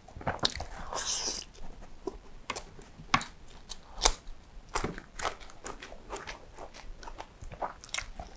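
Close-miked eating: crunching bites and wet chewing of fried chicken and rice, heard as irregular sharp clicks and smacks, with a bite into a fresh cucumber slice about halfway through.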